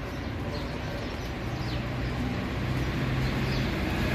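City street traffic: a steady low engine hum that grows louder toward the end as a vehicle approaches, with a few short, falling bird chirps.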